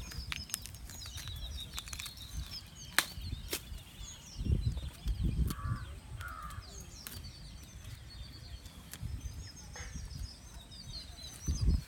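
Outdoor field ambience with many small birds chirping throughout, a few sharp clicks, and low rumbles swelling briefly around the middle and near the end.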